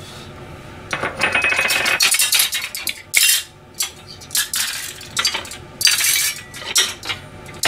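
Stainless-steel pans, a ladle and crockery clanking and clinking as they are stacked into a drawer dishwasher's rack: a quiet first second, then a longer clatter followed by a string of short knocks.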